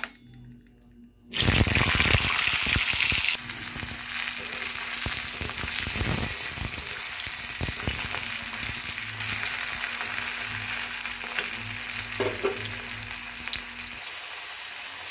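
Raw green banana slices frying in hot oil in a kadai: the sizzle starts suddenly about a second and a half in as the slices go into the oil, loudest at first, then goes on steadily while a metal spatula stirs and scrapes them.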